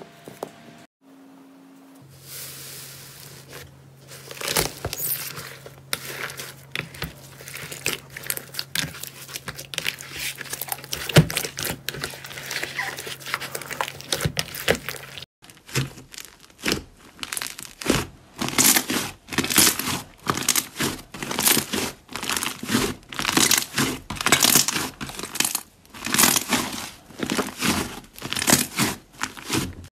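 Hands squeezing and kneading slime: a dense run of crackles, pops and squishes, with a low steady hum under the first half. In the second half the squishes come in bunches, about one squeeze a second.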